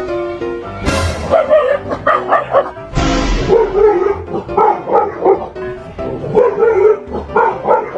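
A dog yipping and whining in quick runs of short, bending calls, over background music.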